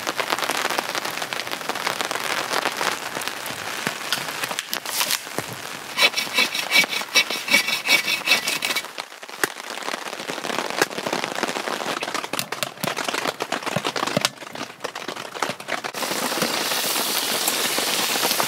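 Rain pattering on a tent tarp, then firewood being split with sharp knocks, and near the end a steady sizzle from steak frying in a pan on a wood stove.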